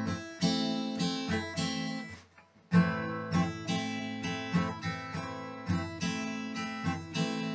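Acoustic guitar strummed in a six-stroke strum pattern, full-hand downstrokes and one-finger upstrokes. It pauses briefly about two seconds in, then the pattern starts again.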